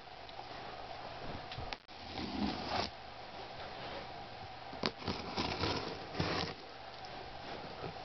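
Handling of a taped cardboard shipping box being opened: rustling and scraping in two stretches, with a sharp click about five seconds in, over a steady faint hum.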